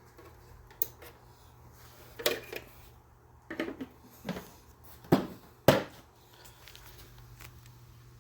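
Scattered clicks and knocks, with two sharp, loud clicks about half a second apart a little after five seconds in, over a low steady hum.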